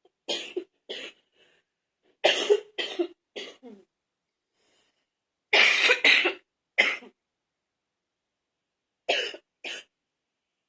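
A woman's wet, chesty cough from a cold, coming in four fits of two to five coughs each with silent pauses between, the loudest fit about halfway through.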